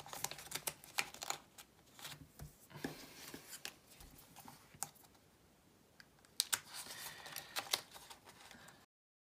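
Rustling and small clicks of plastic binder sleeves and photocards being handled and slid into pockets, quieter for a couple of seconds in the middle. The sound cuts off abruptly to dead silence near the end.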